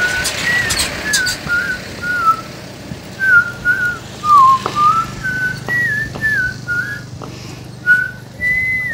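A whistled tune: a melody of short notes, many of them sliding in pitch.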